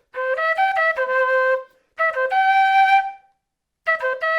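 Quena playing a C major arpeggio, the notes C, E and G, in short phrases of quick notes with brief pauses between them. The notes come in different orders, and one phrase ends on a held high note.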